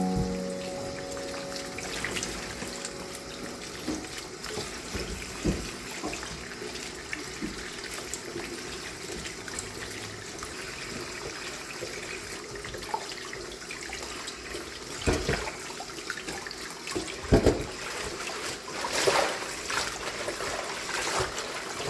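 Water running from a kitchen tap into a sink, a steady trickle, with a few knocks and clatters along the way.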